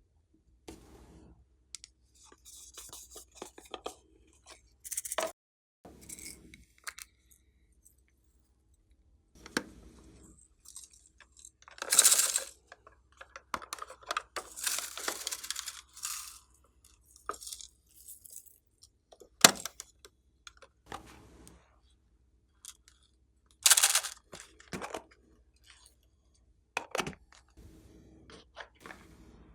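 Slime being handled and mixed by hand: irregular bursts of sticky crackling and crunching with occasional sharp clicks, the loudest a single click about two-thirds of the way through.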